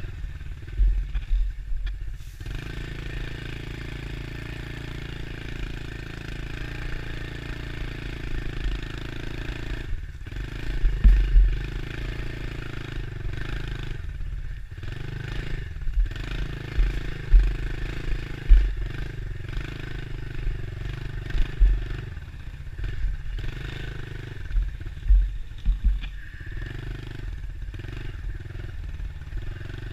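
Dirt bike engine running as it is ridden along a rough trail, the throttle easing off briefly several times and picking up again, with loud low thumps through the ride.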